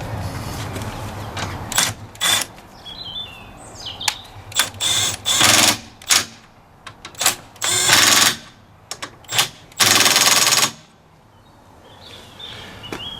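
Milwaukee M12 right-angle impact wrench hammering in a series of short bursts of rattling impacts, about a dozen squeezes of the trigger, the longest and loudest near the end.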